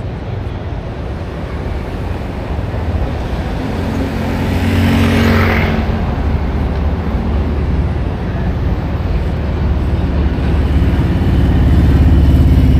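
Road traffic on a city street: engines rumbling low and steady, with a vehicle passing louder about five seconds in.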